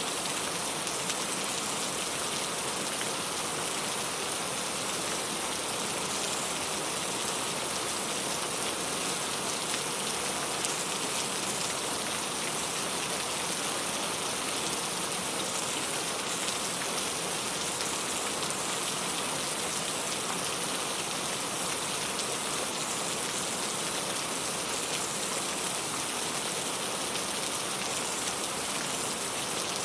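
Steady rain falling, a continuous even hiss of drops on a surface.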